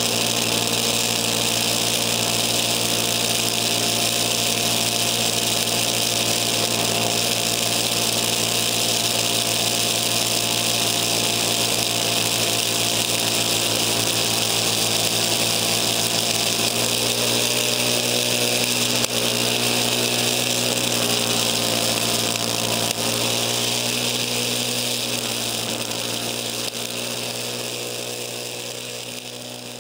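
Craftsman snowblower's engine running steadily under load while clearing snow and throwing it out of the chute, picked up close by a camera mounted on the handlebars. The sound fades out over the last few seconds.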